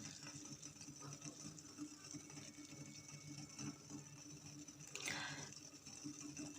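Faint simmering of water with guava leaves in a pot on a low flame, with a steady low hum under it and one brief soft swish about five seconds in.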